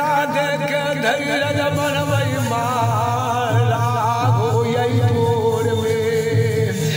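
Jhumar folk song music: a wavering, held melody line over a steady drone.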